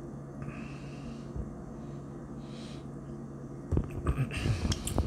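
A faint steady low hum, then near the end a cluster of clicks and knocks as wooden chopsticks pick sardines out of a metal tin and press them onto a cracker.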